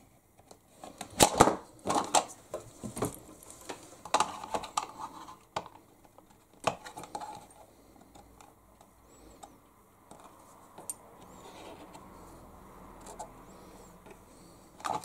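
Light clicks and knocks as a hobby servo is held and shifted against a plastic box on a wooden bench, then a quieter stretch of faint scratching as a permanent marker traces around the servo.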